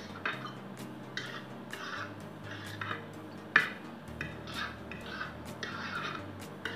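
Metal spoon and fork scraping and clinking on a large platter, scooping up leftover noodles in a string of short scrapes, with one sharper clink about three and a half seconds in.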